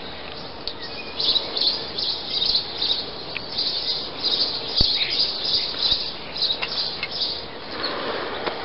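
Small birds chirping, a quick run of short high chirps over and over, with a single sharp click midway.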